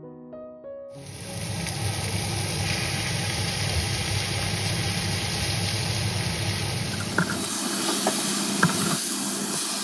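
Marinated oxtail pieces sizzling loudly in hot oil and onions in an aluminium pressure cooker pot, starting about a second in. From about seven seconds in, a metal spoon clicks and scrapes against the pot as the meat is stirred.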